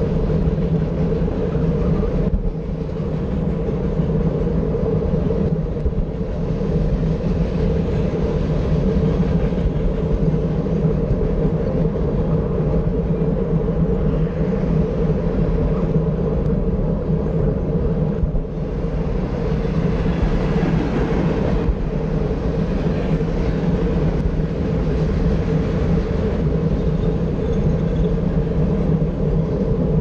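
Freight train of tank cars and box cars running on the tracks alongside, a steady rumble, with road traffic passing.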